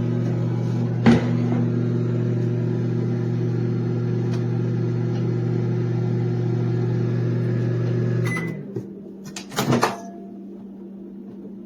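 Toshiba ML-EM09PA small microwave oven running with a steady hum, then shutting off about eight seconds in. There is a sharp click about a second in, and a few clicks and a short clatter shortly after it stops.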